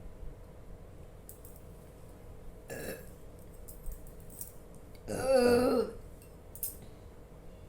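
A woman burps once loudly, a long wavering burp of nearly a second about five seconds in, brought up by gulping chilled carbonated Thums Up cola. A shorter, fainter sound comes about two seconds before it.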